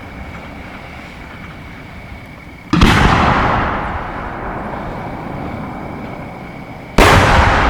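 Two aerial firework shells bursting, one about three seconds in and one near the end: each a sudden loud boom that rolls on in a long, slowly fading rumble.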